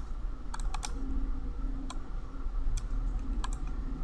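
About seven sharp computer clicks at an uneven pace, from a mouse and keyboard in use, over a steady low hum.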